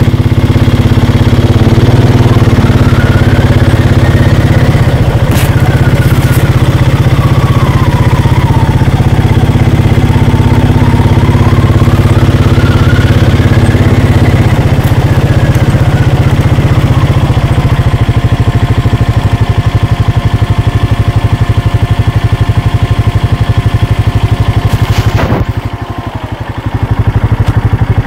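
ATV engine running steadily as it rides slowly along a dirt track. The engine note drops for a moment about 25 seconds in, then picks up again.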